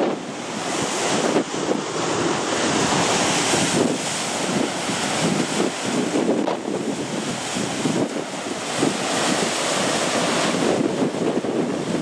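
Rough sea surf breaking and churning against rocky shore ledges, a steady rushing wash of water, with strong wind buffeting the microphone.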